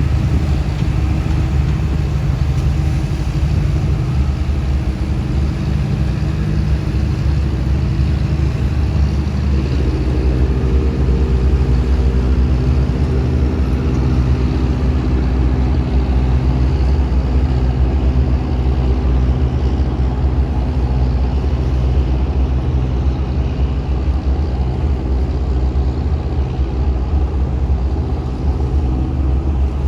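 Trawler's engine running with a steady low drone; about ten seconds in, a second, higher engine tone joins and holds.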